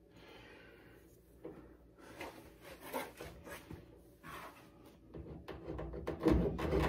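Faint scattered rubbing and light clicks of hands working rubber windlace onto a car's door-opening pinch-weld seam, with a few heavier knocks near the end.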